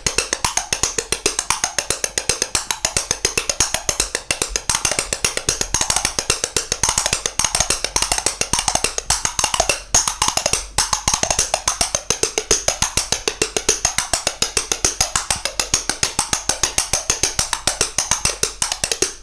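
Coconut shells struck in a fast, continuous rhythm, played as Carnatic concert percussion. Several hollow strokes a second, some notes bending up and down in pitch.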